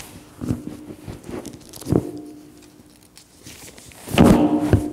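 Bible pages being turned and paper handled at a pulpit: a few short knocks and rustles, then a louder rustle of paper from about four seconds in.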